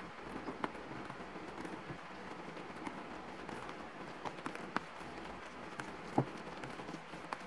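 A plastic spatula stirring and folding a ground pork, carrot and flour mixture in a stainless steel pot: soft wet scraping with scattered sharp clicks where the spatula knocks the metal.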